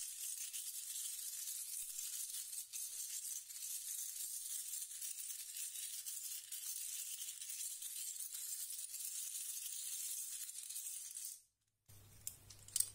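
Small shells shaken inside a sheer mesh drawstring bag, a continuous soft rattling that stops abruptly near the end.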